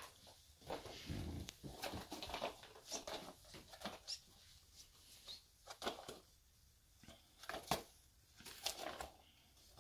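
A dog chewing and pawing at a cardboard egg carton wrapped in masking tape, trying to get the treats out: irregular bursts of cardboard and tape crinkling and rustling, with sharp snaps and a soft thump about a second in.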